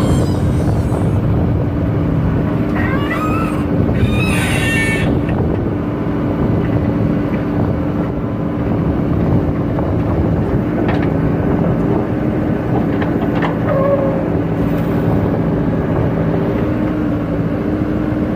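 Diesel engines of a JCB 3DX backhoe loader and a Mahindra tractor running steadily as the backhoe digs soil and loads the trolley. A few brief high squeaks come about three to five seconds in.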